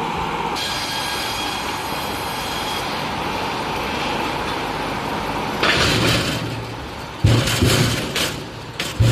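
Log cross-cut saw machine running with a steady mechanical hum. In the second half it turns loud and rough, with heavy wooden knocks and clattering.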